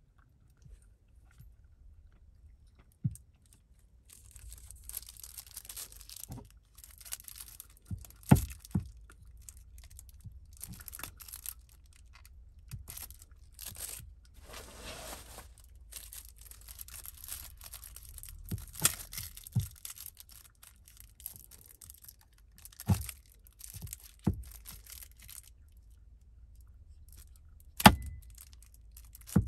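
Cat crunching dry food from a ceramic bowl, with faint crackly rattling and scattered clicks and knocks. A louder knock comes near the end.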